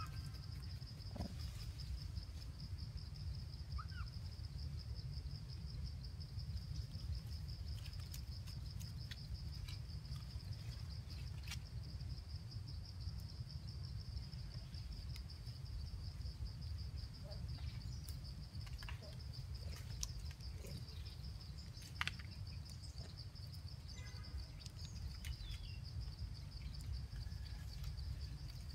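Faint forest ambience: a steady, high, finely pulsing insect trill over a low rumble, with a few faint chirps and clicks.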